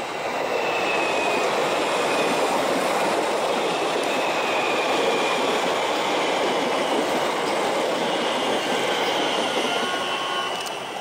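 Siemens electric multiple-unit suburban train passing at speed. Its wheels run on the rails in a steady rumble, with faint high wheel-squeal tones over it. The sound falls away about ten seconds in as the last car goes by.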